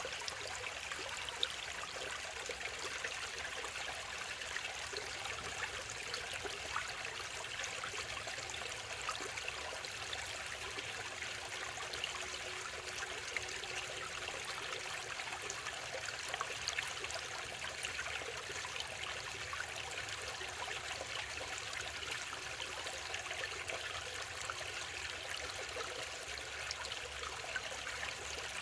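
Mountain valley stream, water running and trickling over rocks in a steady, unbroken rush.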